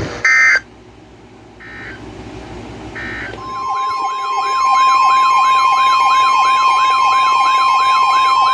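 Emergency Alert System broadcast audio. It opens with three short, shrill data-burst chirps about a second and a half apart, the end-of-message code that closes a warning. At about three and a half seconds a loud alert tone begins: a steady high tone with a siren-like sweep rising and falling about twice a second over it.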